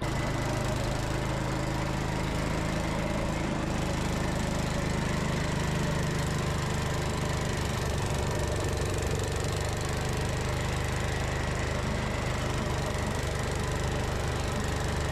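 Gravely C10 walk-behind tractor's Kohler engine running steadily under load, driving the snow blower attachment.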